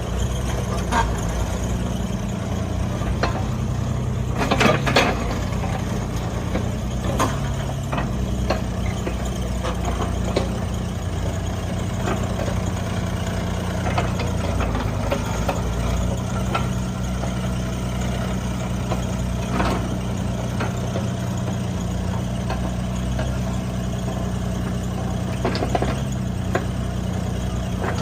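Caterpillar 303CR2 mini excavator's diesel engine running steadily at idle, with a few sharp knocks scattered through it.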